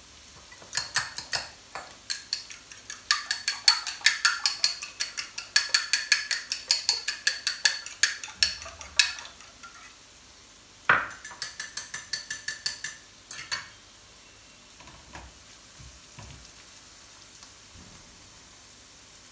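A metal utensil clinking rapidly against ringing cookware at about four strokes a second, in a long run and then a shorter one, over a faint steady sizzle of frying.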